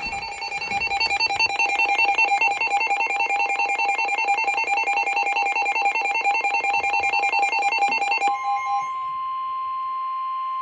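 NOAA Weather Radio alert tones: a rapid, warbling electronic pulsing for about eight seconds, then a switch to the steady single-pitched 1050 Hz warning alarm tone, which cuts off near the end.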